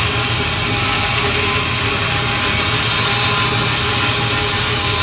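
Bandsaw running and cutting through a thick block of wood as the block is fed into the blade, a steady machine noise that holds at the same level throughout.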